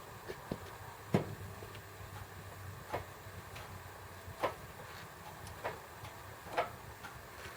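Sharp single clicks, one every second or so, as the tilt mount of a battery LED light is turned downward. The loudest comes about a second in.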